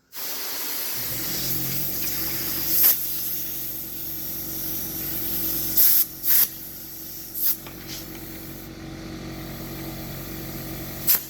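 Compressed air hissing from an air chuck at a dirt bike inner tube's valve stem, the air escaping at the valve instead of filling the tube. A steady compressor hum joins about a second in, and several short sharp blasts of air break through the hiss as the chuck is worked on the valve.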